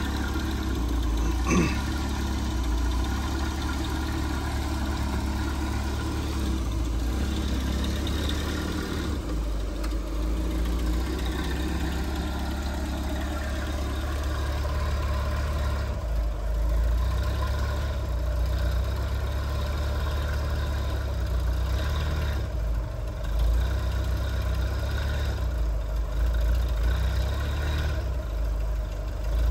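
Vehicle engine idling steadily at low speed, a low rumble with small rises and falls in level as it is eased back and forth.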